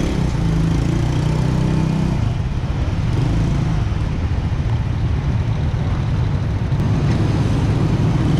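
Steady engine and traffic noise from motor vehicles, with an engine hum that is strongest in the first two seconds.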